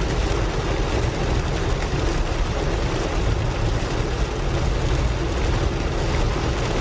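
Steady rumble and rush of a car driving, with road and wind noise.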